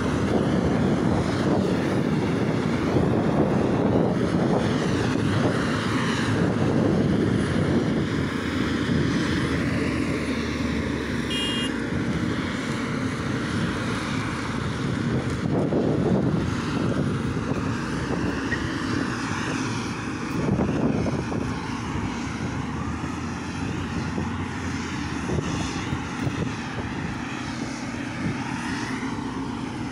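Silage-harvest machinery working: a forage harvester and its tractors running steadily under load, a heavy engine drone with a wavering higher whine on top.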